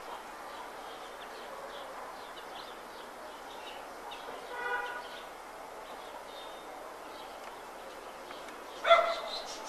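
Outdoor city background: a steady hum with scattered small high chirps, a short pitched tone about halfway through, and a loud, sudden pitched call or blast near the end.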